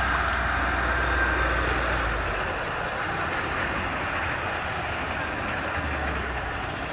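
Homemade Vietnamese rice combine harvester with a 120-horsepower engine, running steadily as it cuts rice, making a continuous machine noise. A low engine hum under it drops away about two seconds in.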